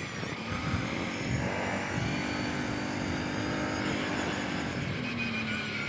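Kawasaki Brute Force 750 ATV's V-twin engine running under way on a trail, its pitch rising in the first couple of seconds, holding steady, then dropping near the end.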